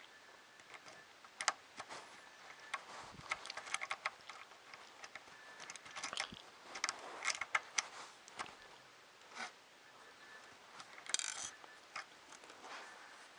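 Small 3D printer kit parts being handled and fitted by hand: irregular light clicks, taps and rattles, with a brief scratchy rustle near the end.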